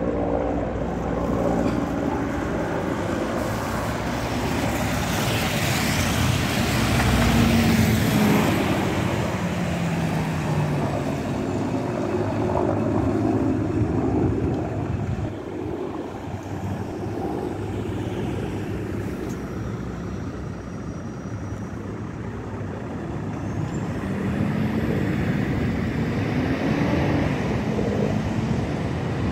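SOR NB 18 articulated city bus driving past close by, its engine loudest about seven seconds in, then pulling away with the engine note rising and falling as it accelerates, mixed with road traffic noise from passing cars.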